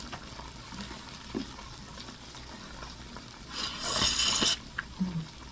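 Marinated short ribs sizzling steadily on a grill, the heat up high enough to sizzle too much. About four seconds in comes a loud slurp of glass noodles lasting about a second.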